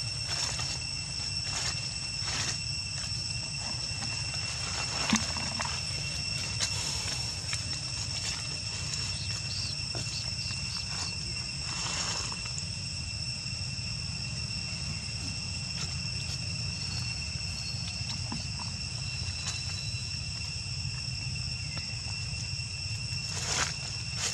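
Steady high insect drone, two unbroken shrill tones, over a low steady rumble, with scattered short clicks and rustles.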